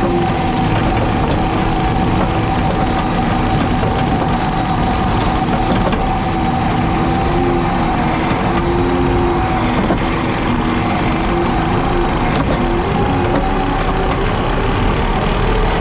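JCB Teleskid skid steer running steadily while mowing with a 7-foot Jenkins bush hog: a loud, even machine drone with a few held tones that waver slightly in pitch.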